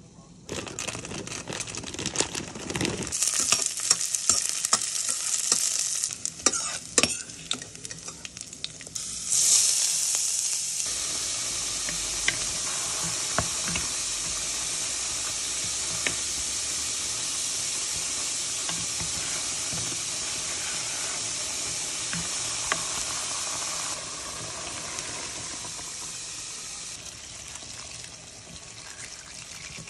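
Food frying in hot oil in a cooking pot, with clinks and stirring and short bursts of sizzle. About nine seconds in a louder sizzle starts suddenly, holds steady, and eases off over the last few seconds.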